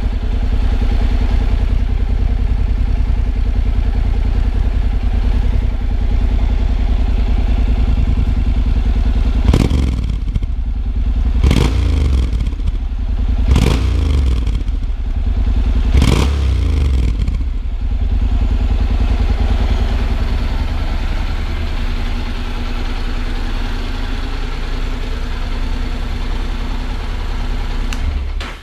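Exhaust of a 2016 Honda NC 750X, a 745 cc parallel-twin motorcycle, idling steadily. About ten seconds in the throttle is blipped four times in quick succession, each a brief rise in revs, before it settles back to idle.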